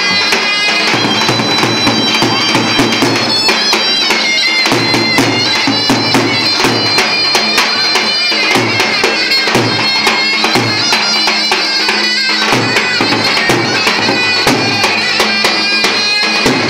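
A zurna playing a reedy folk dance melody over a davul bass drum beaten in a steady rhythm.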